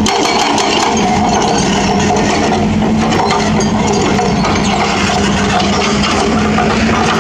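Hydraulic breaker on a Hitachi Zaxis 210F excavator hammering rapidly into a concrete road, a fast steady rattle of blows over the excavator's running diesel engine.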